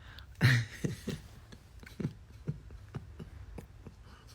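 A run of light, irregular taps and clicks, about three a second, the loudest about half a second in.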